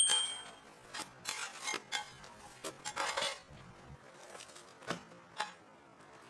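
A two-tone bell chime rings out and fades within the first half-second. Then come scattered light metallic clinks and short scrapes, about one a second, as hot candy is worked by hand on a metal slab table.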